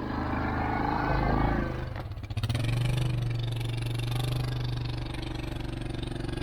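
A vehicle engine running under load as it pulls away. It builds up over the first second and a half, breaks off briefly about two seconds in, then settles into a steady, even drone.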